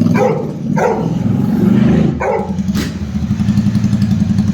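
Royal Enfield Super Meteor 650's 648 cc parallel-twin engine idling with its exhaust taken off, a deep, evenly pulsing beat. A dog barks several times in the first couple of seconds.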